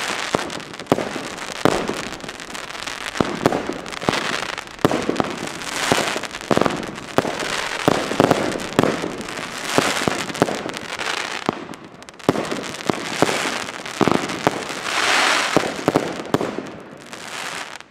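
Fireworks cake firing a fast run of spinning UFO shots that end in titanium salutes. Sharp bangs come one or two a second, unevenly spaced, with a hiss between them.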